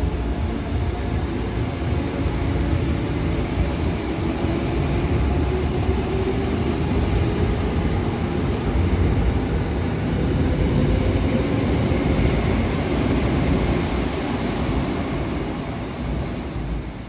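A Seoul Subway Line 3 GEC electric train pulling out of the station. Its traction motors whine higher in pitch as it gathers speed over the first several seconds, over a low rumble of wheels on rail. The sound fades near the end as the train clears the platform.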